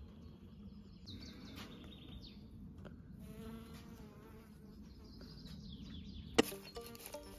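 A faint, steady buzzing drone with a few high, falling chirps over it. About six seconds in there is a click, and background music begins.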